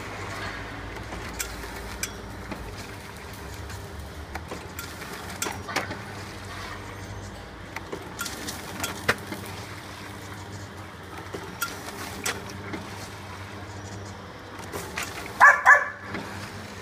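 Plastic sachet form-fill-seal machine running: a steady hum with irregular clicks and knocks from its mechanism. Two short, louder pitched sounds come near the end.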